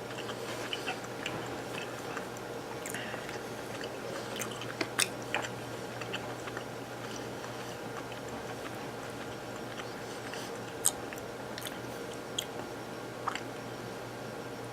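A person chewing a small piece of smoked beef, giving faint, scattered clicks from the mouth over a steady low hum.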